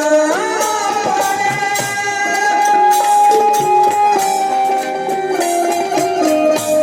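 Instrumental passage of a purvi folk song: a melody instrument plays a tune of held and sliding notes over steady percussion.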